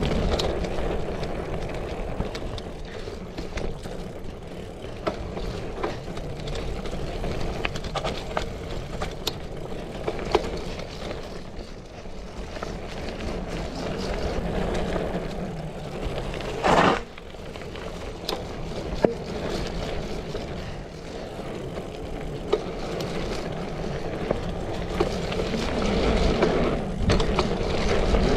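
Bicycle riding down a dirt trail, heard from a camera carried on the ride: tyres rolling over the ground and the bike rattling over bumps with frequent small clicks. A brief louder rush of noise comes a little past the middle.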